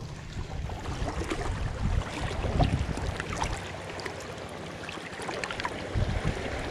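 Shallow sea water lapping and splashing against shore rocks close by, with many small drips and splashes. It grows louder, with a low rumble, about six seconds in.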